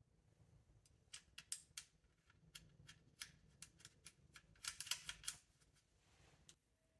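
Light metallic clicks and taps of hand tools against engine parts, irregular at first, with a quick run of clicks about five seconds in and a short rubbing sound just after.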